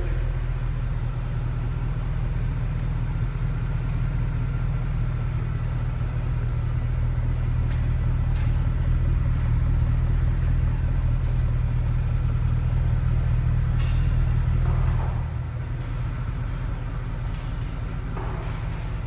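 Mercedes C63 AMG Black Series' 6.2-litre V8 idling with a steady low rumble, a little quieter from about fifteen seconds in.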